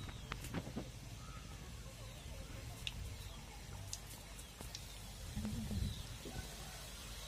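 Samosas deep-frying in hot groundnut oil in a kadai: a faint sizzle with scattered small crackles and pops.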